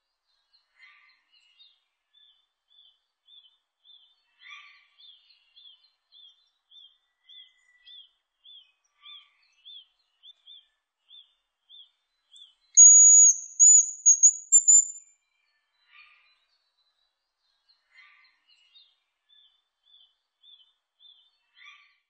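Hazel grouse singing once: a very high, thin whistling phrase of about two seconds, starting about 13 s in, the loudest sound here. Behind it runs a faint, even series of short chirps, about two or three a second, with a few lower calls now and then.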